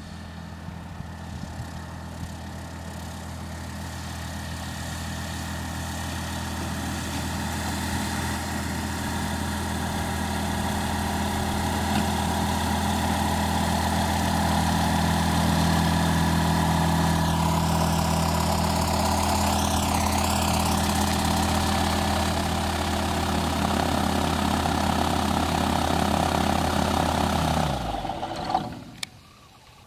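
SportCruiser light-sport airplane's propeller engine running at a steady low power, as when taxiing, growing louder as the plane draws near. It cuts off abruptly near the end, followed by a single click.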